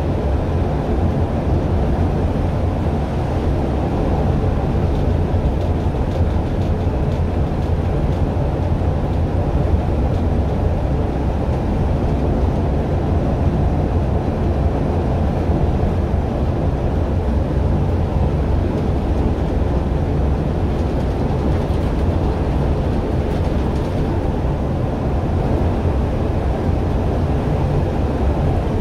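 Steady low rumble inside an articulated bus cruising along the O-Bahn guided busway: engine and tyres running on the concrete guide track, unchanging throughout.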